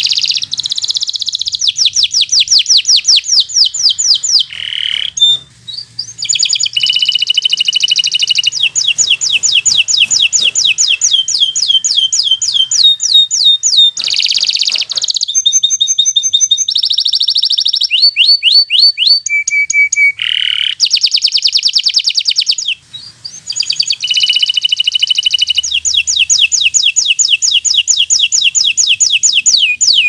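Local-type domestic canary singing loudly in long rolling trills: runs of rapid, evenly repeated sweeping notes that switch to a new trill every second or two. The song breaks off briefly twice, about five seconds in and again around twenty-three seconds.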